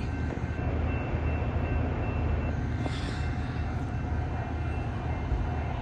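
Metra commuter train standing at the platform, its diesel locomotive running steadily with a low rumble and a faint, steady high whine.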